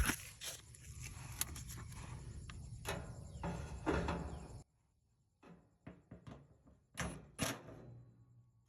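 Clunks and knocks of dryer parts being handled during a drum and roller replacement. For about the first half they come over a steady background noise that cuts off suddenly; after that they are single knocks with short gaps between them.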